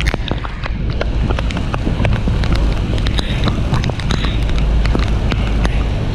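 Wind and driving spray buffeting the microphone over a loud, steady low rumble of the Horseshoe Falls, with many sharp clicks of water drops striking the mic.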